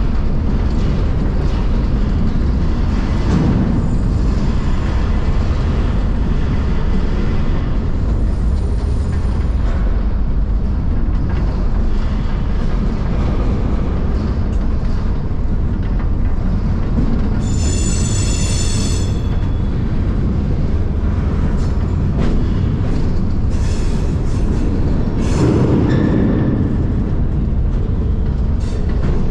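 Freight car rolling through a rail yard, heard from inside through its open door: a loud, steady rumble and rattle. Near the middle comes a brief high-pitched metal squeal lasting about a second and a half, and a few louder clanks follow later.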